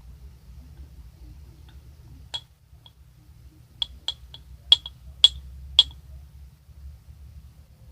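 Sharp clinking taps of a hard utensil against a glass or hard plastic container: one tap, then a quick run of six or seven over about two seconds, each with a short bright ring.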